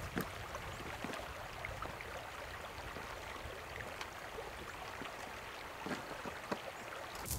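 Shallow mountain stream running over rocks, a steady rushing trickle, with a few faint clicks.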